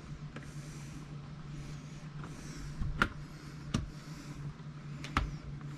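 Small clicks and taps of laptop parts being handled while a replacement screen is fitted: three sharp clicks about three, three and three-quarter, and five seconds in, with faint rustling over a steady low hum.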